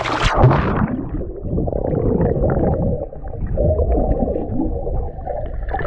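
A splash into a swimming pool, then dull, muffled underwater rumbling and gurgling with all the brightness cut off, as heard with the microphone under the water.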